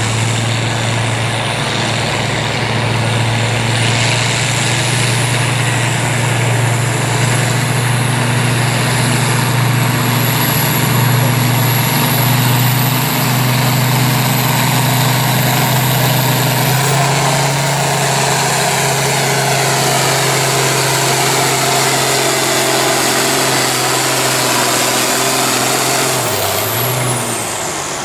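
International Harvester farm tractor's diesel engine running hard under full load, pulling a weight-transfer sled, with a thin high whine above the engine note that slowly rises. Near the end the engine note drops and the whine falls away as the pull ends.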